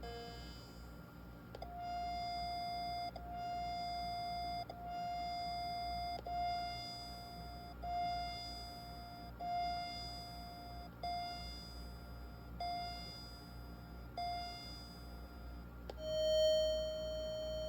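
Commodore 64's SID sound chip playing test tones from a SID tester program, heard through a small speaker. It plays a run of about ten electronic notes of the same pitch, each about a second and a half long, with differing swells and fades as its filter and envelope tests are cycled. Near the end a slightly lower note starts with a loud swell and then holds steady.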